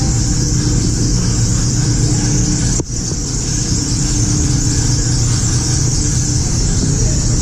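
Steady droning hum with a hiss over it and no let-up, briefly cutting out about three seconds in.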